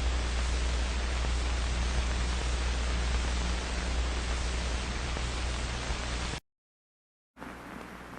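Old-film static sound effect: a steady hiss over a low hum. It cuts off suddenly about six seconds in, falls silent for about a second, then a quieter hiss comes back.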